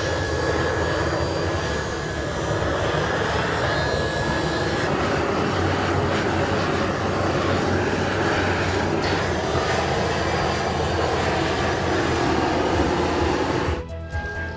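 Steady, loud mechanical roar that cuts off abruptly near the end.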